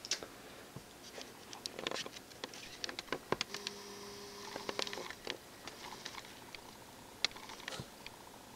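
Faint handling noise from a handheld camera: scattered light clicks and soft rustles, with a faint steady whine for about a second and a half in the middle.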